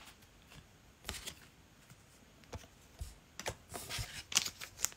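Faint, scattered rustles and light clicks of trading cards and card packs being handled, sparse at first and coming more often in the second half.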